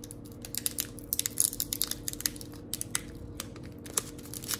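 Foil Pokémon booster pack wrapper being torn open and crinkled by hand, a run of sharp crackles that is densest about a second in. The wrapper tears open normally along its crimped seal.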